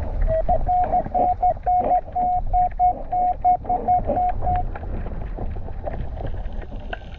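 Minelab Equinox 800 metal detector, heard underwater, giving a quick run of steady mid-pitched target beeps, about three to four a second, signalling a metal target under the coil. The beeps stop a little past halfway, leaving a low underwater rumble.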